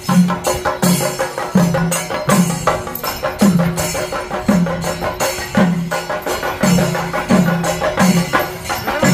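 Kerala temple festival percussion ensemble playing: deep drum strokes that fall in pitch, about once a second, over fast, dense drumming and metallic cymbal clashes.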